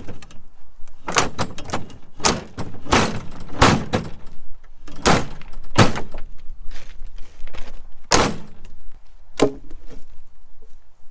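Firewood logs knocking and thudding as they are handled and dropped: a series of about eight heavy wooden thuds, roughly a second apart.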